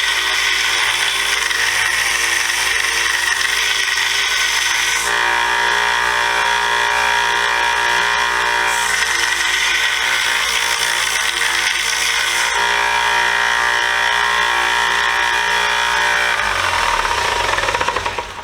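Combination belt and disc sander running as a steel wrench is pressed against it to grind off chips, dings and burrs, the grinding changing a few times as the work is shifted. The motor is switched off near the end and winds down.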